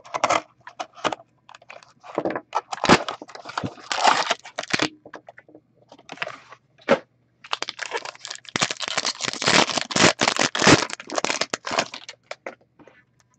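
A small cardboard trading-card box being slit and torn open, in short irregular bursts of tearing and crackling. From about seven seconds in, the foil pack inside crinkles steadily for several seconds as it is pulled out and handled.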